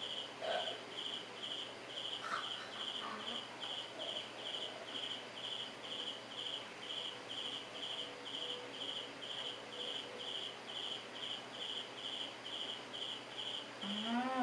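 A cricket chirping in a steady even rhythm, about two and a half high chirps a second. Under it is faint rustling of a dried egg-white and tissue face mask being peeled off the skin.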